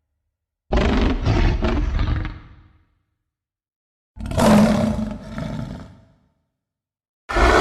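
Two animated creature roars, a growling monster vocal effect, each about one and a half to two seconds long with a silent gap between them. A new loud sound starts right at the very end.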